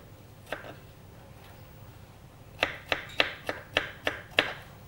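Kitchen knife chopping red bell pepper on a wooden cutting board: one knock about half a second in, then a quick run of about seven strikes, roughly four a second, in the second half.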